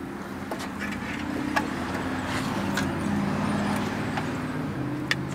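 A motor running steadily in the background, its low hum wavering in pitch and dropping slightly near the end, with a few light clicks of wires and a clip being handled.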